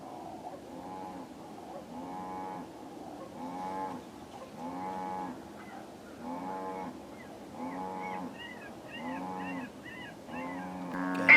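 Electronic predator game call playing a low, bawling animal distress call, repeated in a steady rhythm about every one and a half seconds to lure a coyote.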